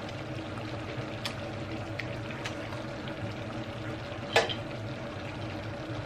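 Eating sounds from a person picking apart and sucking crab by hand: faint wet mouth clicks and smacks over a steady low hum, with one louder sharp click about four seconds in.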